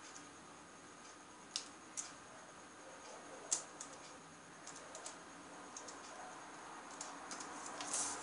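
Faint, scattered ticks of a graphite pencil touching down on drawing paper in short strokes, about one or two a second. Near the end a hand brushes across the paper with a soft rustle.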